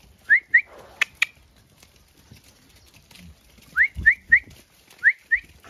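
A person whistling short rising whistles in quick groups of two and three, with two sharp clicks about a second in, calling an animal to come.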